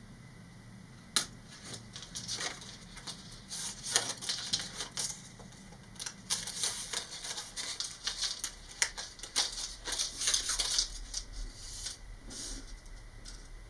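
Hobby knife blade cutting and scraping through thin vacuum-formed plastic wrap, with the plastic sheet crackling as it is handled: irregular scratchy clicks and ticks, one sharp click about a second in and a dense run in the second half.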